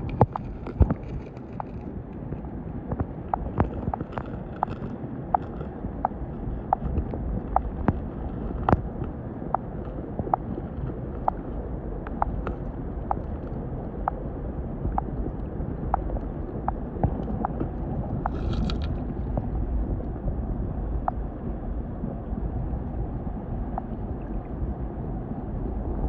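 Water heard through a submerged microphone: a muffled, steady low rumble of moving stream water with a string of short sharp clicks and taps, about one or two a second.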